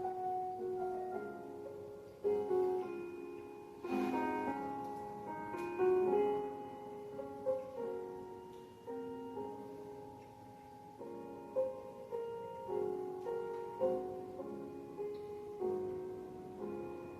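Piano music: a slow melody with chords, notes struck one after another.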